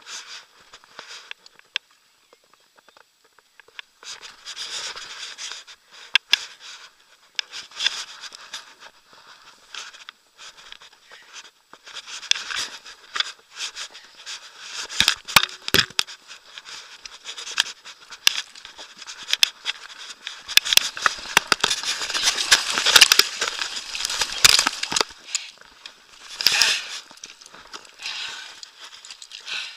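Irregular rustling and crackling with many sharp clicks, busiest in the second half: handling and movement noise on a wearable camera as the angler pushes through bankside grass and handles a landed carp on pebbles.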